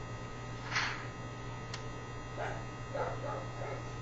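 A steady electrical hum runs under a few short calls from a Quaker parrot: one brief harsh squawk about a second in, then several quick chirps and chatter sounds in the second half.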